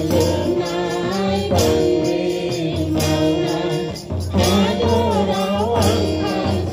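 A group of women sing a gospel hymn together, one voice led through a microphone. They are accompanied by a steady beat on a large double-headed hand drum.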